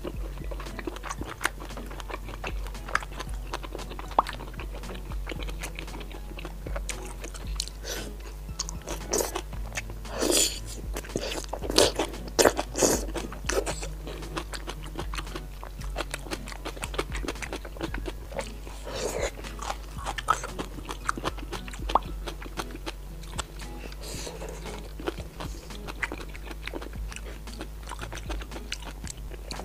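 Close-miked eating of deep-fried skewered food: repeated bites and crunchy chewing with wet mouth sounds, loudest in a run of bites about 10 to 13 seconds in.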